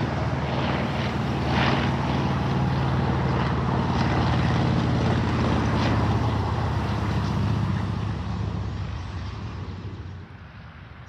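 Large single-engine propeller warbird with a radial engine flying low past, its engine droning steadily, then fading away over the last few seconds.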